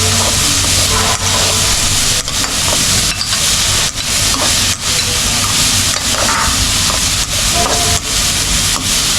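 Chopped onion, ginger and green chilies sizzling as they are stir-fried in hot oil, with the frying onions well along toward done.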